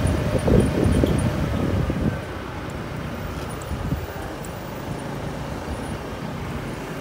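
Wind buffeting the microphone over the rumble of riding along a street. It is loud and gusty for about the first two seconds, then settles into a steadier, quieter road and engine noise.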